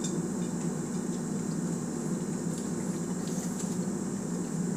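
Steady low background hum of room noise, with a few faint clicks of chewing.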